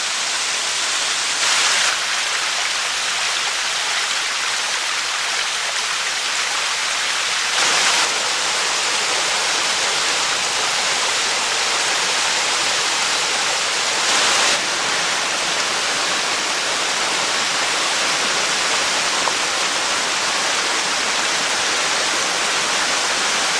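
Waterfall rushing with a steady, dense roar of falling water, briefly louder three times.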